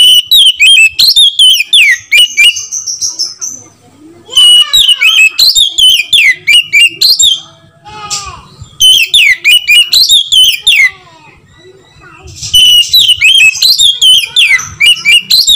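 Oriental magpie-robin (kacer) singing loudly in four bursts of rapid, varied whistled notes, with short pauses between them. This is a bird in full song (gacor), the kind of song used as a lure to provoke other magpie-robins into singing.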